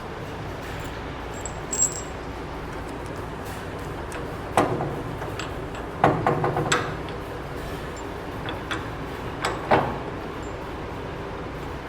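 Metal suspension parts and hand tools clinking and knocking as they are handled, in short scattered clusters over a steady background hiss. The sharpest knocks come a little before halfway and near the end.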